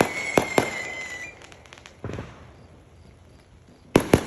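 Fireworks going off: a few sharp bangs at the start with a high steady whistle that stops about a second in. Then a quieter stretch with one pop, and three quick loud bangs near the end.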